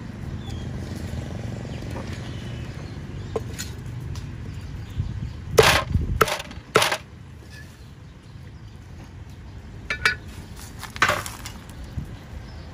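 Cleaver chopping grilled chicken on a thick wooden chopping block: three hard chops about half a second apart around the middle, then two lighter knocks near the end.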